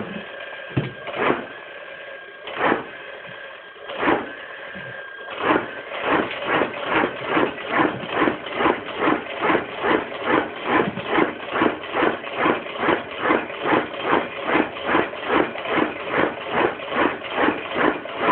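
Automatic agarbatti (incense stick) making machine with a freshly greased piston screw and bearings, starting up. It gives a few slow, separate strokes over a steady high tone, then about five seconds in settles into an even run of about two and a half strokes a second, each stroke pressing out a stick.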